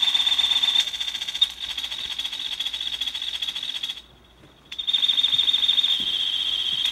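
High-pitched electronic tone with a fast pulsing texture, played live from a laptop and electronics through PA speakers; it cuts out suddenly about four seconds in and comes back under a second later.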